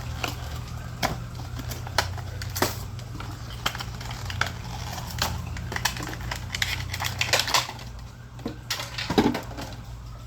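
Irregular sharp clicks, snaps and crinkles of plastic and cardboard packaging being worked open to free a Majorette die-cast Lamborghini toy car, over a steady low hum.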